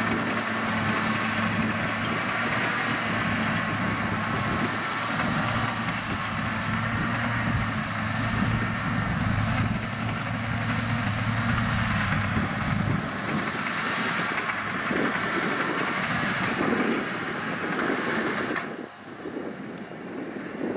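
Caterpillar 963C track loader working: its diesel engine runs steadily along with the clatter of its steel tracks. The low engine note falls away about two-thirds of the way through, leaving mostly track and machine clatter. The sound drops off abruptly near the end.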